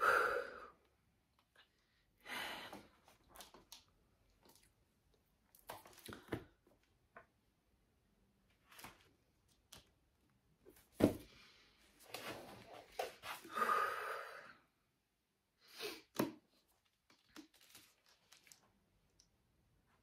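Pages of a paperback book being flipped and handled: scattered soft paper rustles and short crisp page turns with pauses between them.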